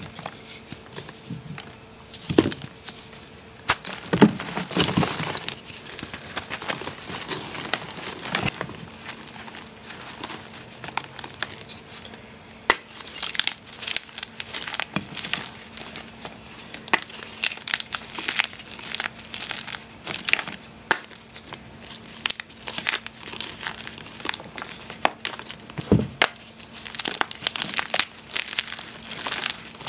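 Blocks of fresh and reformed gym chalk being crushed and crumbled by hand into loose chalk powder: an irregular run of dry crunching and crumbling, with sharper cracks now and then.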